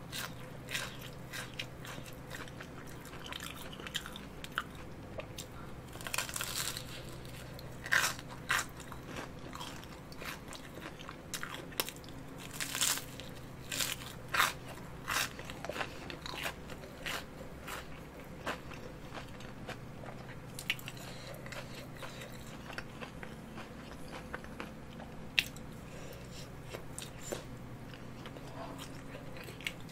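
Close-miked bites and chewing of a Gourmet crispy hot dog, its fried batter crust giving irregular crisp crackles, with a few louder crunches around the middle.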